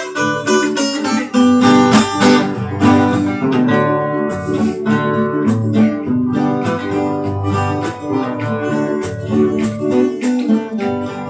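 Two acoustic guitars playing an instrumental piece: a quick picked melody over plucked and strummed accompaniment, notes following closely throughout.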